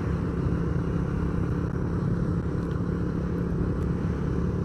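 A motor vehicle's engine running at a steady cruise, an even hum with road noise, heard from the moving vehicle.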